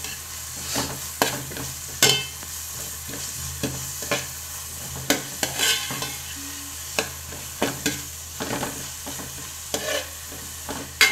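Chopped onions and green chillies sizzling as they fry in butter in a metal pot. A steel spoon scrapes and clinks against the bottom of the pot at irregular intervals, roughly once a second, as they are stirred.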